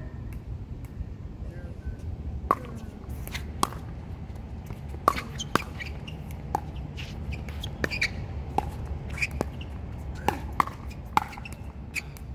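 Pickleball rally: paddles striking the hollow plastic ball, about a dozen sharp pops with a short ring, coming every half second to a second from about two seconds in until near the end.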